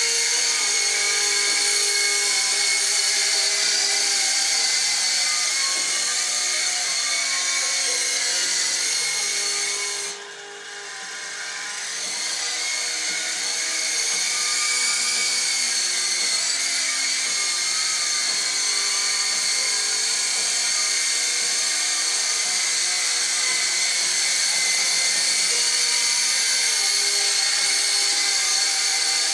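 SYMA S032 radio-controlled toy helicopter's small electric motors and rotors running with a steady high-pitched whine. About ten seconds in the whine drops sharply, then builds back up over a few seconds.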